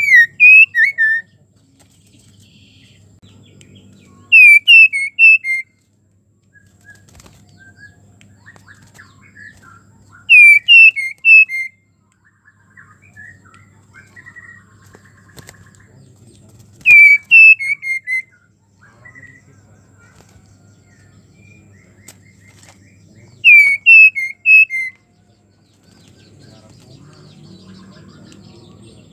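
Female white-rumped shama in breeding condition calling for a male: five short, loud phrases, each a quick run of four or five falling notes, repeating about every six seconds, with soft, quieter notes in between.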